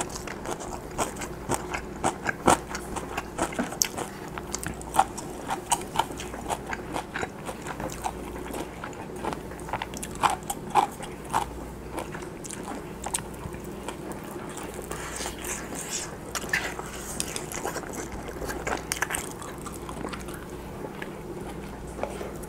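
Close-miked chewing of pan-fried Spam and rice, with frequent sharp wet mouth clicks and smacks, busiest in the first half and sparser later.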